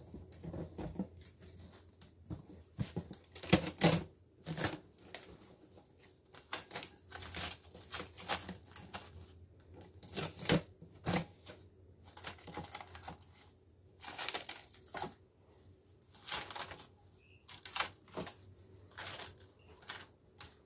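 Plastic cling film crinkling and crackling in irregular bursts as it is pulled from its box and pressed down over the rim of a glass bowl.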